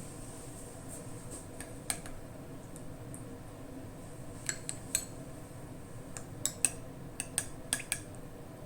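Kitchen utensils clinking and tapping against dishes in a string of light, sharp clicks, sparse at first and coming more often in the second half, over a steady low background hum.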